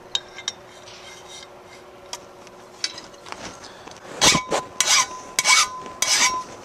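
A hand file rasps across the saw-cut end of 1-inch square metal tubing clamped in a bench vise, deburring its rough edges. It makes four strokes about two-thirds of a second apart in the second half, after a few light clicks.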